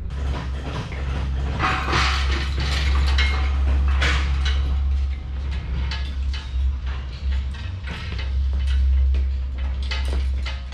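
Irregular mechanical clicks and clanks of hand tools and metal parts being worked on, over a steady low hum.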